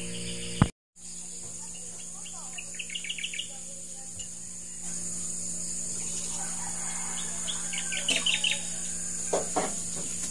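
Birds chirping in quick runs of notes, twice, over a steady high insect drone. A sharp click with a brief drop to silence comes less than a second in.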